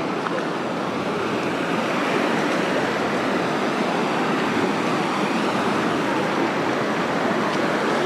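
Small waves breaking and washing up on a sandy shore, a steady rush of surf.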